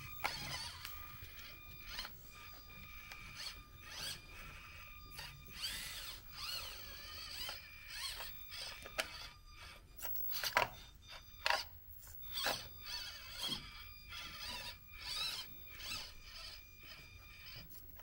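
Axial SCX24 1/24-scale RC crawler's small electric motor and gearbox whining, the pitch rising and falling as the throttle is worked, with sharp clicks and knocks from the tyres and chassis on flagstone slabs; the loudest knocks come around the middle.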